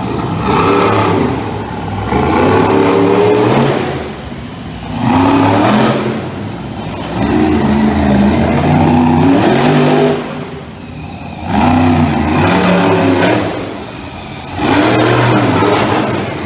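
Monster truck engine revving hard in repeated surges of a few seconds each, its pitch rising and falling, with brief drops in between as the throttle comes off.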